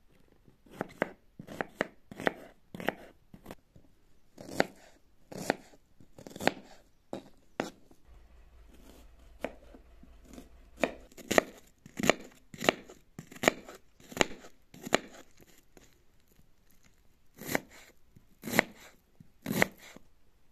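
Kitchen knife dicing an onion on a plastic cutting board: a series of sharp knocks of the blade on the board, about one or two a second, with a pause of a few seconds before the middle and three louder strikes near the end.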